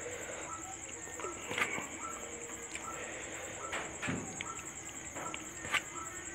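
Fingers mixing rice and fish curry on a metal plate: soft wet squishing with a few sharp clicks against the plate. A steady high-pitched trill runs in the background.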